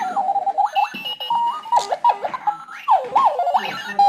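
Robot alarm clock sounding its alarm: a string of warbling electronic chirps and whistles that swoop up and down in pitch, R2-D2-like.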